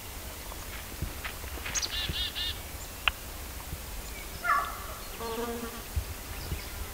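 A flying insect, a bee or fly, buzzing briefly past about four and a half seconds in. A songbird's quick run of repeated chirps comes about two seconds in.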